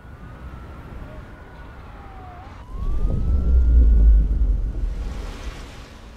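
Distant sirens wailing, their pitch slowly rising and falling, over a low city rumble. About two and a half seconds in, a loud deep rumble swells in with a hiss above it, then fades toward the end.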